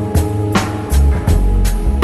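Background music with a steady drum beat and a bass line under held notes.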